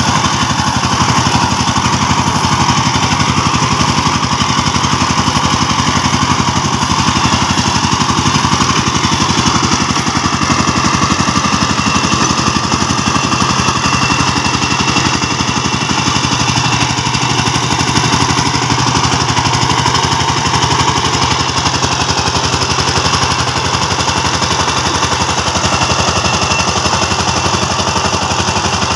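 Two-wheel power tiller's single-cylinder diesel engine running steadily as the tiller drives along, a rapid even engine beat that never lets up.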